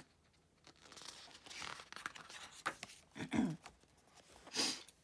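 Pages of a glossy photobook being turned by hand: paper swishing and rustling in several strokes, the loudest a little past three seconds in and another near the end.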